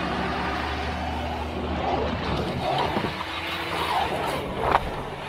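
Vehicle engine running steadily under load as a stuck two-wheel-drive SUV is pulled up a rocky trail on a tow strap, with its note shifting about three seconds in. A sharp knock comes near the end.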